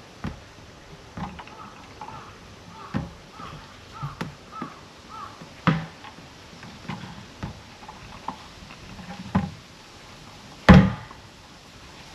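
A series of separate knocks and clunks of equipment being handled, the loudest about three-quarters of the way through, with a bird calling a run of short rising-and-falling notes in the first half.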